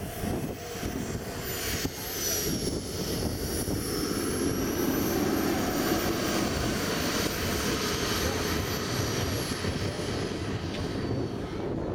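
Small jet turbine of an RC F-16 model running at low power while it taxis: a steady rushing noise with a thin high whine that slowly drifts in pitch.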